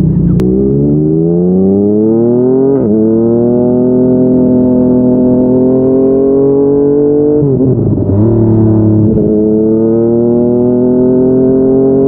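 Yamaha MT-09's inline three-cylinder engine, breathing through a Yoshimura R55 slip-on exhaust, accelerating. The pitch climbs, drops sharply at an upshift about three seconds in, and climbs slowly again. Around eight seconds the engine falls back to a low steady note for a second or so, then pulls again with rising pitch.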